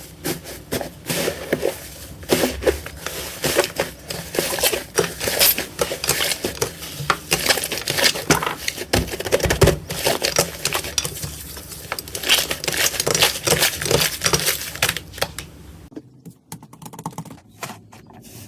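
Slime being squished and worked by hand, making dense, continuous wet clicking and crackling with small pops; it turns sparser and quieter near the end.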